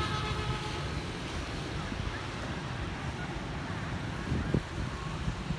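Distant road traffic of motorbikes and cars, with wind buffeting the microphone. A brief gust stands out near the end.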